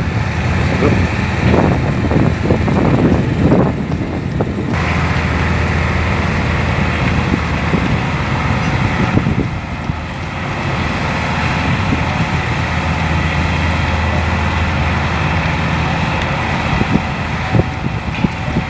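Heavy truck engine running under load. The sound is uneven for about the first five seconds, then changes abruptly to a steadier low hum.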